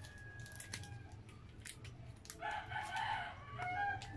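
A rooster crowing about halfway through: one call of about a second, with a shorter note after it. Soft crinkling clicks from a ketchup packet being squeezed and a low steady hum sit underneath.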